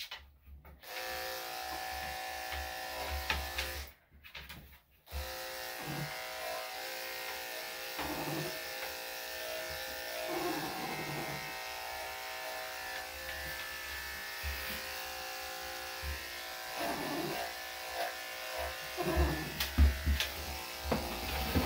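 Corded electric dog-grooming clippers running with a steady buzz as they cut a small dog's wet coat. They start about a second in, switch off briefly around four seconds in, and start again a second later.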